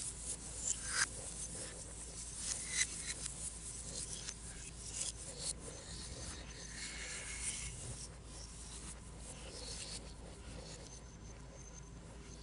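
Stylus scratching and tapping on an iPad screen in short, irregular drawing strokes, busier at first and lighter after about eight seconds.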